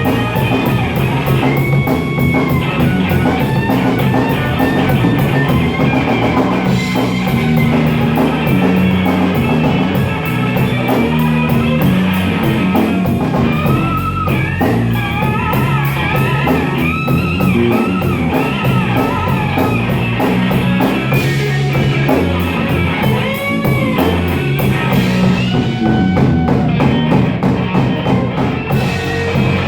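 Slow electric blues played by a band: a lead electric guitar solo with bent notes over drums.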